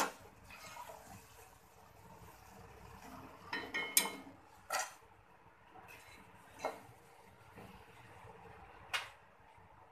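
Metal slotted ladle (jhara) clinking against an iron kadhai and a steel bowl as fried boondi is scooped out of the oil and tipped into the bowl: about half a dozen sharp, separate clinks and taps.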